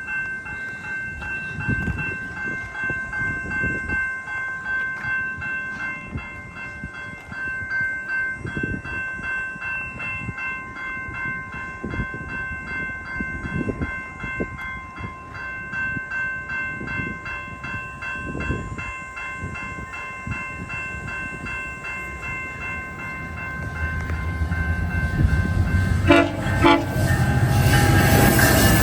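Level-crossing warning bells ringing steadily as a GO Transit train approaches; near the end the locomotive's horn sounds two short blasts in salute and the loud rumble of the train passing over the crossing builds up.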